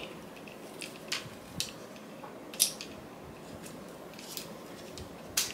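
A few sharp plastic-and-metal clicks, about four spread over several seconds, as a telescoping phone stand is handled and pulled out to extend it.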